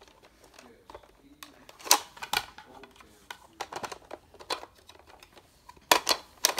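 Sharp plastic clicks from a Nerf blaster being handled: a pair about two seconds in, a few more around four seconds, and a quick cluster near the end.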